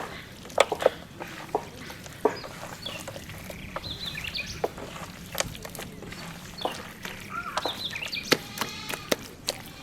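Chickens clucking over scattered sharp knocks and taps.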